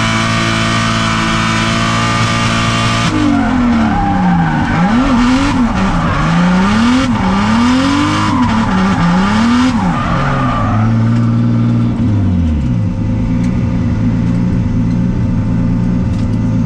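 Drift car heard from inside the cockpit, its engine held at high revs over screeching tyres, then revving up and down again and again as the car is thrown through the drift. After about ten seconds the tyre screech fades and the engine settles to a steadier, lower speed with one drop in revs.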